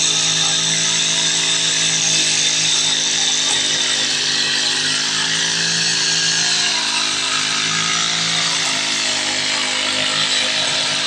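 Backpack brush cutter's petrol engine running at high, steady speed while its cutting head trims short grass.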